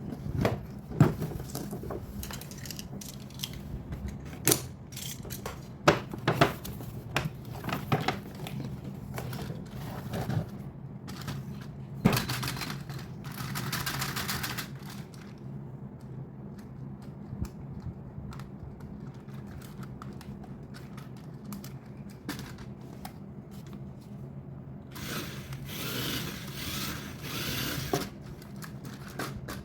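Handling noises: a run of sharp clicks and knocks for the first dozen seconds, then rustling and scraping in two stretches, about twelve seconds in and again near the end, over a steady low hum.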